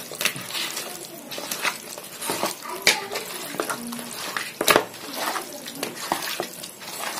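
Raw chicken pieces being mixed by hand with a ginger-garlic paste and spice-powder marinade in a plastic bowl: irregular clicks and knocks as the pieces are pressed and turned against the bowl.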